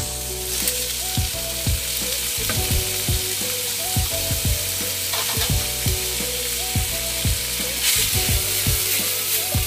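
Whole raw shrimp and ground pork sizzling in hot oil in a frying pan, stirred with a wooden spatula.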